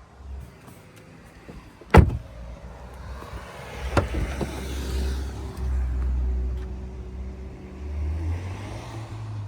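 A car door shuts with a loud thud about two seconds in, and a lighter knock follows two seconds later. Then the Audi SQ5's V6 diesel idles with a steady low rumble that rises a little in pitch near the end.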